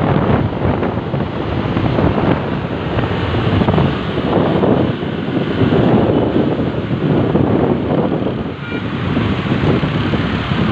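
Wind buffeting the microphone of a moving motorbike, with vehicle and road noise underneath, swelling and easing every second or so.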